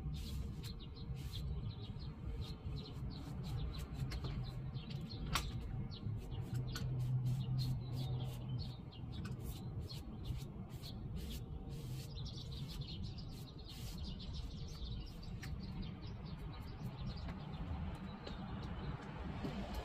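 Small birds chirping in many short, quick ticks over a steady low background rumble.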